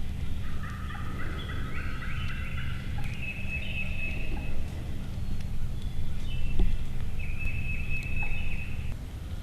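Turkey calls: a run of short notes stepping up in pitch, then several longer, higher calls, over a low steady rumble that stops near the end.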